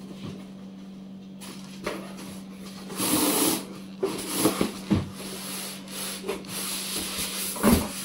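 Cardboard box and packing being handled and opened: rubbing and scraping with several knocks, the loudest near the end.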